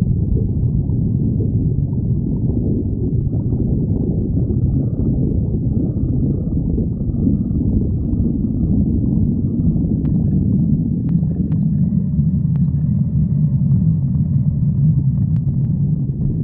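A person's hungry stomach growling: a continuous low rumble with gurgling. A few faint clicks come in the second half.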